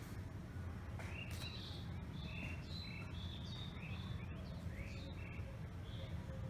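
Small birds chirping: a busy run of short, high chirps and quick upward-sweeping notes over a steady low rumble.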